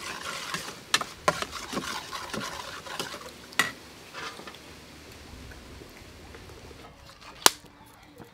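Hiss and crackle with scattered sharp pops from a wok heating over a charcoal stove, fading out about halfway through. Near the end there is one sharp metallic clink, as tongs strike a stainless steel bowl of battered drumsticks.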